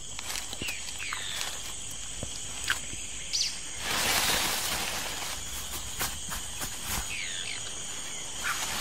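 Rainforest ambience: a steady high insect drone with many short, falling bird chirps. About four seconds in comes a brief rush of leaf rustling as branches are shaken, and there are a few sharp clicks.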